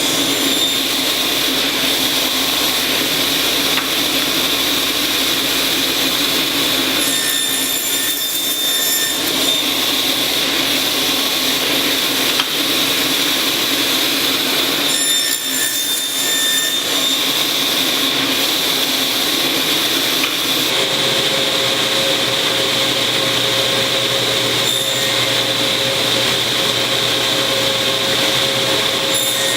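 Woodworking power tool running continuously as it works wood, with a steady high whine; a steady lower hum joins about two-thirds of the way through.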